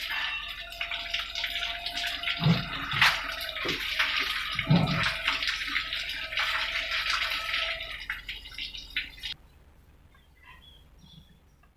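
Liquid pouring and splashing steadily, likely engine oil running into a pan during the oil change, with two low knocks. The pouring cuts off suddenly about nine seconds in.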